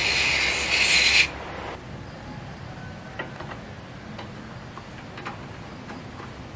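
Aerosol spray can hissing in one burst of about a second as lubricant is sprayed through its straw into the motorcycle's swing arm pivot. This is followed by a few faint clicks and rubbing as the pivot spindle is worked by hand.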